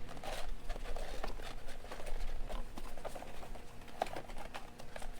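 Cardboard boxes being handled as a tightly fitting inner box is worked out of an outer shipping box: a run of irregular small clicks, taps and scrapes.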